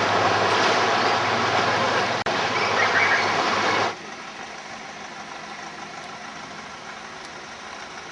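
Speedboat engine running with a loud rush of noise, which drops abruptly about halfway through to a quieter steady idle.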